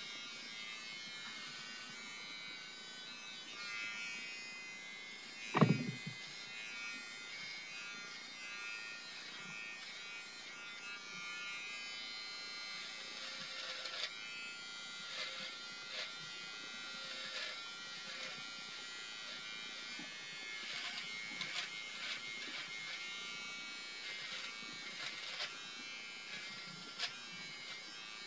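BaByliss for Men i-stubble beard trimmer running with a steady buzz as it is worked over beard stubble, with rapid crackling ticks from about halfway through as it cuts the hair. A single loud knock comes about five and a half seconds in.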